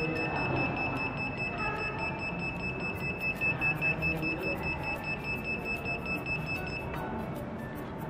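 The alarm buzzer on an Arduino keypad door-lock board sounds one continuous high-pitched tone and cuts off about seven seconds in. The alarm has been set off by three wrong password entries on the keypad.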